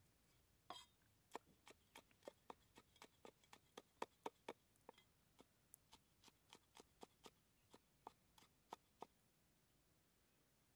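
Cleaver chopping garlic and chili on a round wooden stump cutting board: sharp, even knocks about three a second, stopping about nine seconds in.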